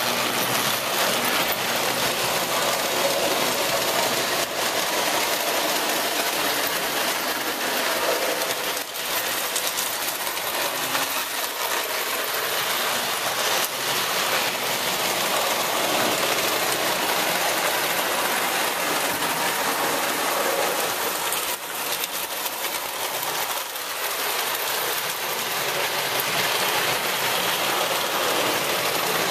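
Model train layout running: a steady mechanical whirring and rattling of a toy train and its motor on metal track, unbroken throughout.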